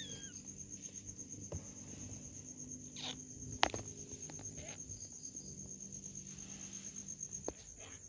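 Faint sounds from a litter of newborn kittens nursing on their mother: a short, high, falling kitten mew at the very start, then a few soft clicks and shuffles, one sharper click about three and a half seconds in. A steady, faintly pulsing high-pitched tone runs underneath.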